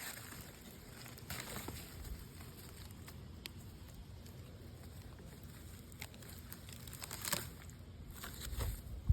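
Hands digging through garden soil and potato plants: faint, irregular rustling and crinkling with a few small clicks, and a louder dull thump right at the end.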